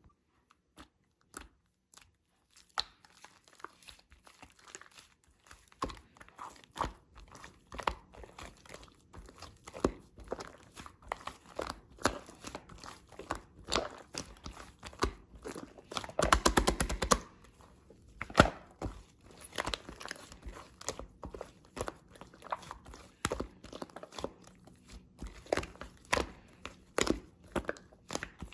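Shaving-foam slime being squished and worked by hand, making irregular sticky clicks and small pops, with a quick run of crackling pops about halfway through.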